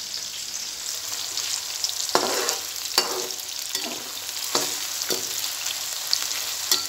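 Sliced onions sizzling in hot oil in a metal karahi. A metal slotted spoon stirs them, knocking and scraping against the pan about five times from about two seconds in.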